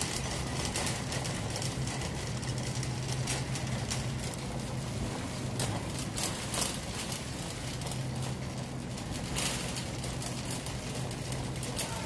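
Wire shopping cart rolling across a concrete store floor, its wheels running and basket rattling, with a few sharper clicks and a steady low hum underneath.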